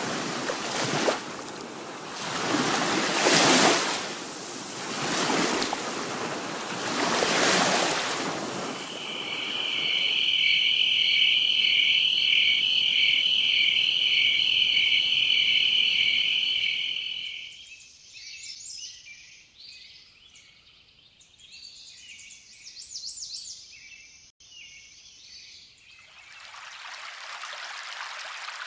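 Letsfit T126L white noise machine cycling through its nature sounds. First come ocean waves swelling and falling every couple of seconds. About 9 s in, a steady, high, pulsing chirr takes over. Around 17 s in, quieter scattered bird-like chirps follow, and near the end comes an even hiss of running water.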